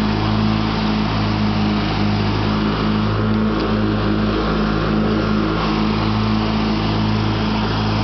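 Craftsman LT1000 riding lawn tractor's engine running at a steady speed as the tractor mows, a constant even drone.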